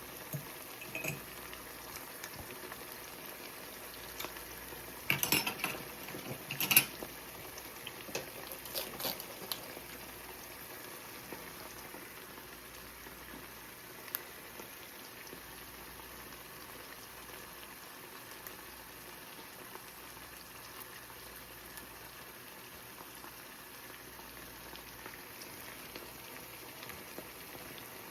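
Egg-white and mushroom scramble with salsa sizzling steadily in olive oil in a frying pan. A few short clinks or knocks come about five to seven seconds in, with smaller ones just after.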